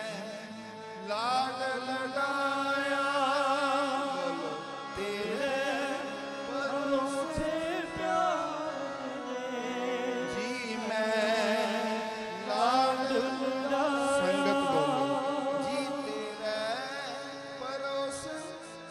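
Male voice singing a Sikh devotional hymn (kirtan) over a harmonium, in long phrases with a wavering, ornamented pitch; the singing swells in about a second in and returns after brief breaks.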